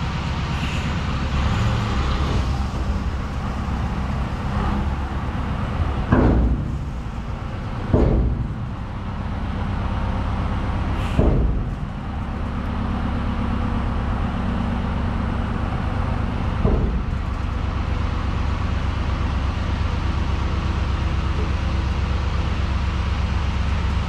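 Zetor 7245 tractor's four-cylinder diesel running steadily as a tipping trailer empties its load of wheat, with four sharp knocks a few seconds apart, about six, eight, eleven and seventeen seconds in.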